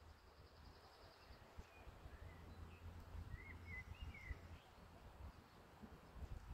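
Near silence, with a few faint, short bird chirps about two to four seconds in.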